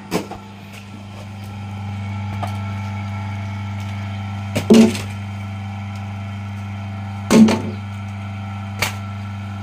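Electric potter's wheel motor humming steadily and growing louder a second or two in, with a few sharp knocks, the loudest about halfway and again near the three-quarter mark, as unfired clay plates and wooden boards are set down.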